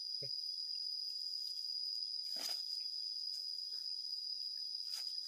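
Steady, high-pitched chorus of insects, one unbroken tone, with a short burst of noise about two and a half seconds in and a sharp click near the end.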